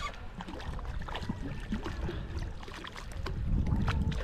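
Outdoor wind rumble and water noise at a rocky shoreline, with a few faint short clicks; the rumble swells near the end.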